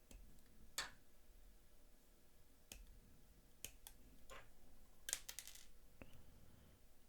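Faint scattered clicks of hobby nippers snipping small plastic model parts off the runner, with a quick run of several clicks about five seconds in.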